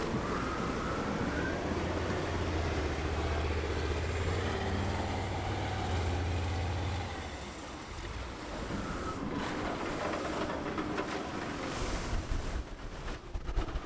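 Engine of an M3 amphibious rig running with a steady low drone that fades out about seven seconds in. Irregular knocks follow near the end.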